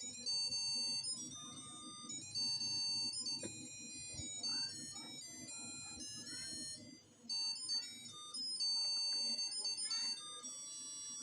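A simple electronic jingle: a melody of pure, beep-like tones stepping from note to note, in the manner of an ice-cream-van or musical-chip tune.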